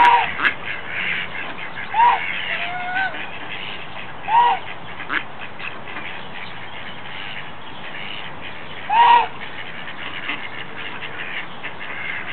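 Mallards calling: four short, loud calls spread across several seconds, with a quieter gliding note between the second and third.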